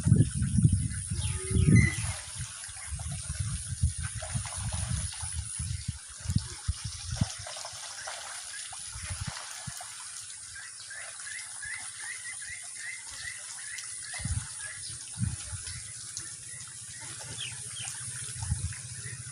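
Splashing, gushing water with low rumbling thumps, loudest near the start. A bird's quick run of about a dozen short chirps comes in the middle, over a steady high hiss.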